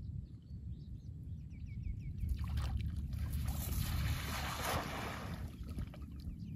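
A cast net is thrown onto a shallow pond by a man wading in it: a rush of splashing water builds about two seconds in and fades out after about three seconds. Birds chirp faintly near the start, and a low rumble runs underneath.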